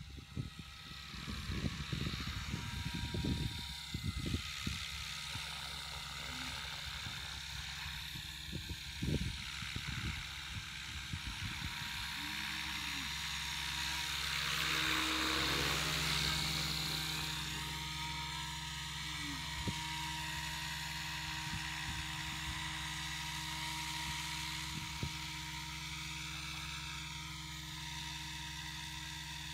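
XL Power 550 electric radio-controlled helicopter flying: a steady whine of the motor and main rotor, swelling to its loudest about halfway through as it comes close and low, then easing off as it moves away. Low gusty rumbles hit the microphone in the first few seconds.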